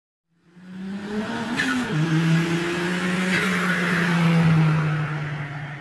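Car engine held at steady high revs, with a brief squeal about one and a half seconds in. It fades in and fades out again.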